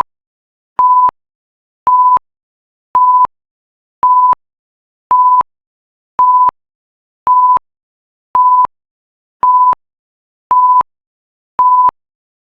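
Countdown timer's electronic alarm sounding at zero: a single steady high beep, short and repeated evenly about once a second, with silence between beeps.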